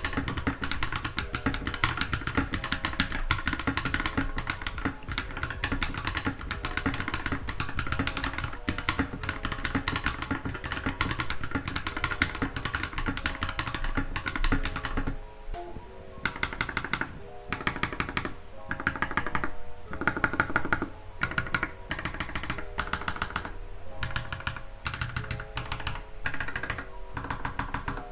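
Typing test on a TM680 hot-swap mechanical keyboard with lubed Akko Vintage White linear switches and cherry-profile PBT keycaps: fast, continuous keystroke clacking, then bursts of typing with short pauses after about fifteen seconds. The owner finds the board a little hollow-sounding, since the case was left without foam. Background music plays under the typing.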